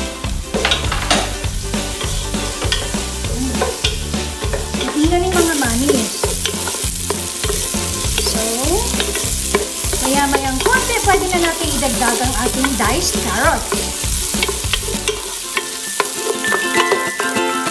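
Diced onions sizzling in oil in a nonstick pot, stirred with a wooden spoon that clicks and scrapes against the pot. The sizzle grows stronger about five seconds in.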